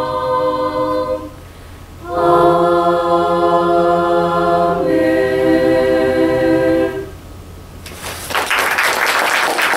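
Mixed student choir singing a cappella, holding long sustained chords with short breaks between them. The singing stops and audience applause starts about eight seconds in.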